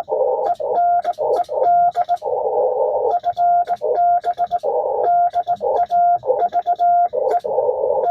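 Morse code (CW) from an amateur radio transceiver: a single steady tone keyed in short dits and longer dahs, with the hiss of the 80-meter band filling the gaps between characters and faint clicks accompanying the tone.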